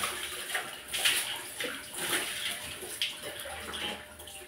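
Water splashing during a bucket-and-dipper bath: water from a small plastic container splashes into a plastic basin and onto a tiled floor in uneven splashes about once a second.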